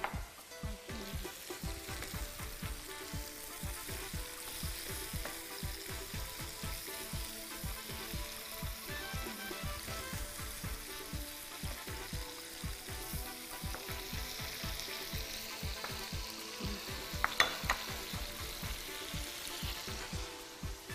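Tomato-based garden egg stew sizzling in a frying pan with a steady frying hiss, stirred with a wooden spoon. A few sharp clicks come about three-quarters of the way through.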